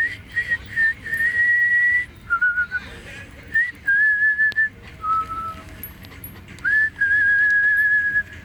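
A person whistling: long held notes at several pitches that waver slightly, separated by short breaks, the longest about a second and a half.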